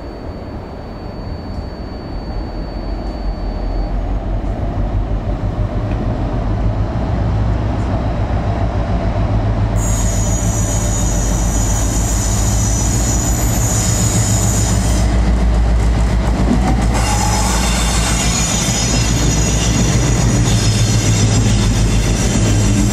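Class 60 diesel locomotive hauling a freight train past at speed: a heavy low engine rumble grows louder over the first several seconds as it approaches. From about ten seconds in, a high-pitched metallic squeal sets in as the locomotive and wagons roll by.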